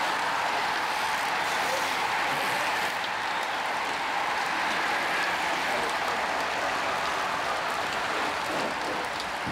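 A stream of road bicycles riding past close by: a steady whir and hiss of many tyres on asphalt and spinning wheels.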